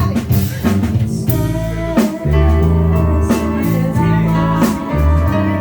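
Live band playing, with organ holding sustained chords over guitar and drum hits.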